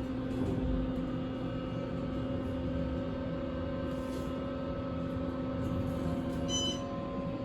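Steady mechanical hum of an elevator, with several fixed tones over a low rumble. A brief high electronic beep sounds about six and a half seconds in.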